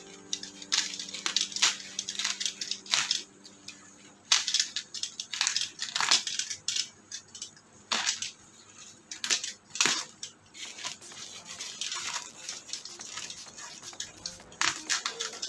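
A black plastic courier bag around a parcel being slit with a box cutter and torn back by hand: irregular crinkling and crackling of plastic, with sharper ripping bursts every second or two.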